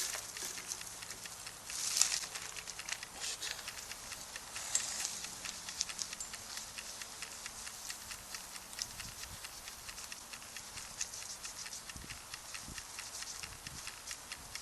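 Wood campfire crackling, with dense small pops and snaps throughout. A few louder rustling bursts come in the first few seconds, and there are soft low knocks near the end.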